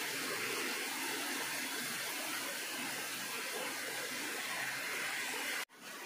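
Steady rush of running water in a limestone cave, cutting off abruptly near the end.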